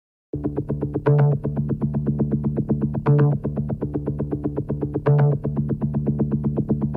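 Instrumental music: a low note pulsing rapidly and evenly, about eight pulses a second, with a heavier accented chord every two seconds. It starts abruptly just after the beginning.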